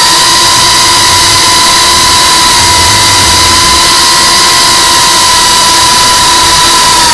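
FPV drone's brushless motors and propellers running at steady high throttle as it climbs, heard from on board: a loud, steady high whine over a dense rushing hiss of prop wash.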